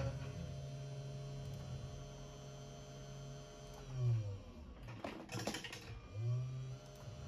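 CNC 3018 Pro desktop router's motors humming steadily. The pitch drops a little before four seconds in and rises again just after six, with a short burst of harsher noise about five seconds in.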